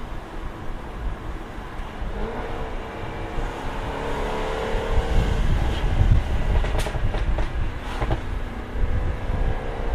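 Jaguar F-Type R's supercharged V8 accelerating, its note rising, then a burst of sharp exhaust crackles and pops on the overrun about seven seconds in, before the engine pulls again near the end.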